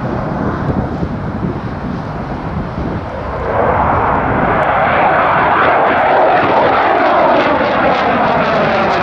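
Dassault Mirage 2000's single SNECMA M53 turbofan roaring as the jet climbs steeply overhead. The roar grows louder about three and a half seconds in and carries a sweeping, phasing edge.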